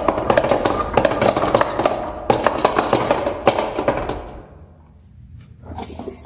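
Many marbles rolling and clattering down a wooden HABA marble run, a dense stream of clicks over a rolling rumble that thins out and stops a little over four seconds in, followed by a few scattered clicks.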